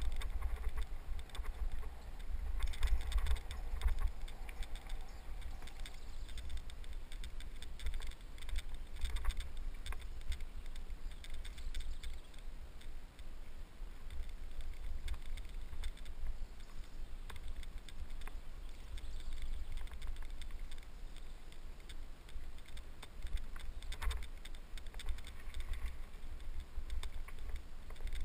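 Wind rumbling on a helmet-mounted camera's microphone while a mountain bike rolls down a dirt trail, with scattered rattles and clicks from the bike and camera jolting over bumps, a sharper one about 24 seconds in.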